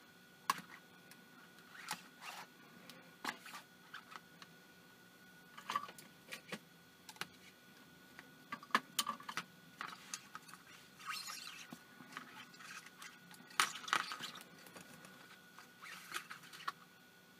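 Irregular small clicks, taps and brief scrapes of hands handling a night vision monocular's plastic housing and its thin wires, with a few louder knocks and scrapes about 9 and 14 seconds in.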